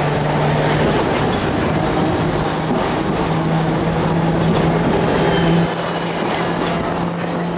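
Hong Kong double-decker tram running along its rails, heard from on board: a steady rumble of wheels on track with wind noise and a low hum that steps slightly higher about three seconds in.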